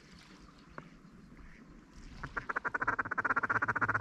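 Rapid duck feeding chatter: after about two quiet seconds, a fast, even run of short chuckling notes starts about halfway through and cuts off abruptly at the end.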